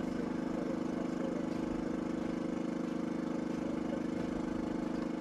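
A heavy vehicle's engine idling: a steady low hum with a fast, even pulse.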